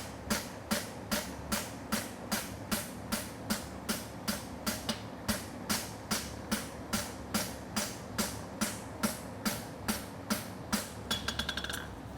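Farrier's hammer striking a hot steel horseshoe on the anvil in a steady rhythm, about two and a half blows a second, while forging and narrowing the shoe. Near the end come a quick run of lighter taps with the anvil ringing, over a steady fan hum.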